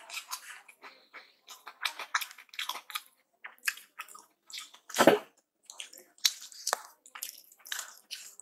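Close-miked eating sounds: wet chewing and mouth smacks of rice with potato keema, mixed with the squish of rice being kneaded by bare fingers on the plate. The sounds come as quick irregular clicks and smacks, one fuller and louder about five seconds in.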